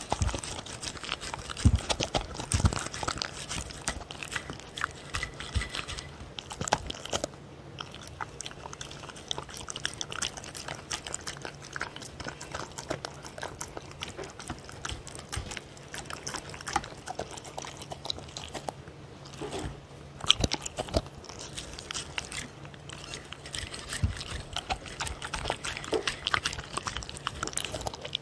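A dog eating soft food (ground meat and tofu) from a stainless steel divided tray: continuous wet chewing and mouth smacking close to the microphone. Now and then there is a sharper click or knock, loudest about two seconds in and again about twenty seconds in.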